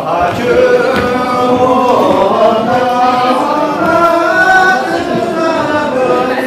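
A group of voices singing a Tibetan circle-dance song together, a slow chant-like melody sung by the dancers.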